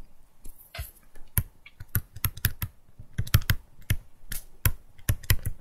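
Stylus pen tip tapping and clicking on a tablet screen during handwriting: a run of irregular sharp clicks, a few a second.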